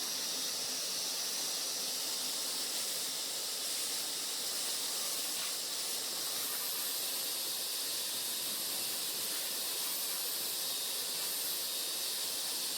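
Vacuum cleaner running steadily, sucking grinding dust out of a freshly widened concrete crack: an even rushing hiss with a thin high motor whine.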